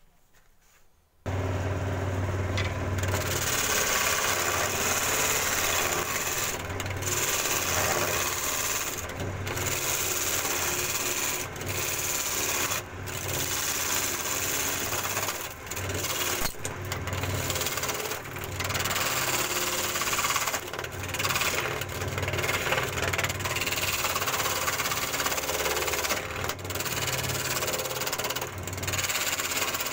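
An electric woodworking power tool starts abruptly about a second in and runs steadily, with several brief dips in level as it works the wood.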